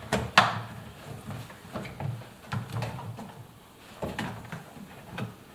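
Hands working the new rubber door seal of an Indesit washing machine onto the drum opening, with knocks and rubbing as it is pressed into place. A sharp click about half a second in is the loudest sound, followed by several softer knocks.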